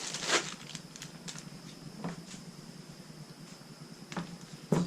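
Scattered rustles and light clicks of climbing gear and packaging being handled, with one sharper click near the end.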